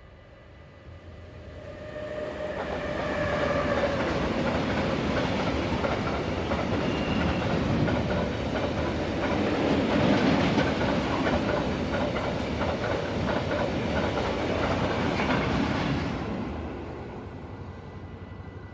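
Freight train of tank wagons hauled by a Siemens Vectron locomotive passing close by. The sound builds over the first few seconds as the train approaches, then wheels clatter over the rail joints as the tank cars roll past. It drops away suddenly near the end as the last wagon clears.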